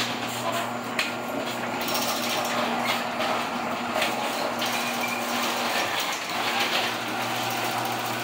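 Electric garage door opener running with a steady motor hum as it drives a sectional garage door down, the door's rollers rattling and clicking in the tracks. The door is acting up, which the owner puts down to worn rollers.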